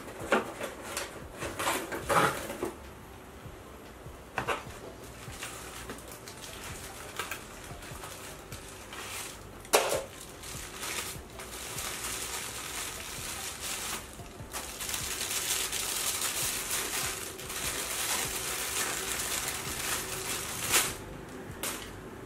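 A few sharp taps and knocks of items being handled on a tabletop, then, from about halfway, the steady crinkling and rustling of a plastic bubble-wrap bag as a camera lens is unwrapped by hand. The crinkling is loudest near the end and stops shortly before it.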